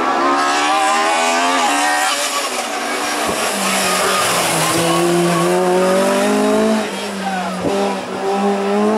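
Hill-climb race car's engine revving hard, its pitch dropping and climbing again several times with gear changes as it passes.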